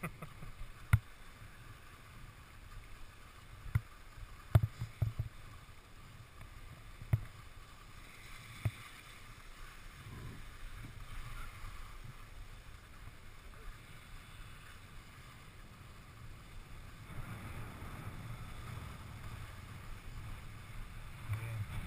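Alpine skis carving on groomed snow: a steady scraping hiss over a low rumble of wind on the microphone, growing louder near the end. Several sharp knocks fall in the first few seconds.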